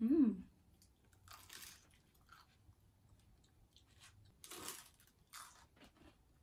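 A person chewing and crunching the crisp crust of a Jollibee peach mango pie, in a few separate crunches. It opens with a short hummed 'mm' that rises and falls in pitch.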